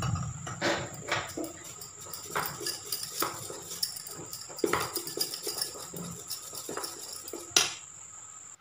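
Steel spoon stirring thick gram-flour (besan) batter in a steel bowl, with irregular clinks and scrapes of spoon against bowl.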